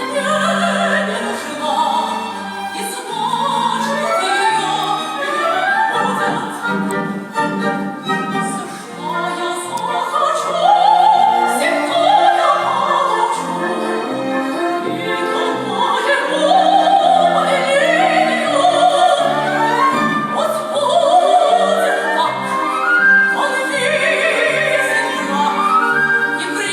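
Classical operatic music: a singing voice over orchestral accompaniment, with many ascending melodic phrases.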